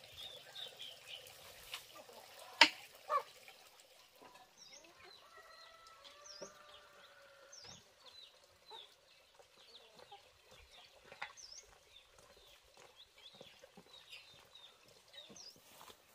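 Chickens clucking, with scattered short high chirps and a longer wavering call in the middle. A sharp knock about two and a half seconds in, with a smaller one just after, is the loudest sound.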